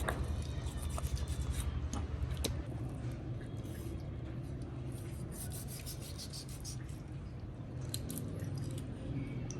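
Irregular rubbing and scraping with scattered small clicks, over a steady low hum.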